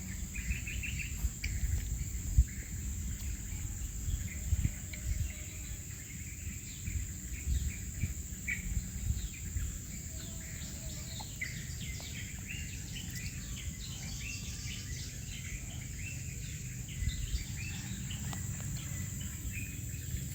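Outdoor ambience: many short bird chirps over a steady, high insect drone, with an uneven low rumble underneath.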